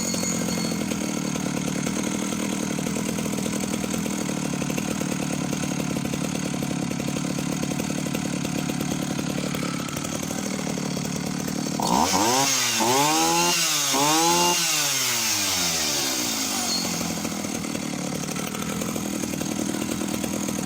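Husqvarna L65 vintage 65cc two-stroke chainsaw idling steadily. About twelve seconds in it is blipped up to high revs and straight back down about four times in quick succession, then settles back to idle with no hesitation.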